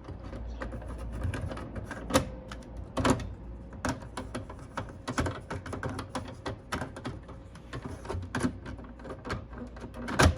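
Irregular clicks and crackles from a Lloyd's V444 radio cassette boombox with no music playing, with a faint steady tone underneath. The radio is off-station, between stations as it is tuned.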